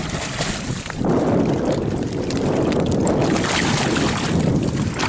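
Wind rumbling on the microphone over water splashing as a hooked striped bass thrashes at the surface in the shallows. The noise gets louder about a second in and stays steady.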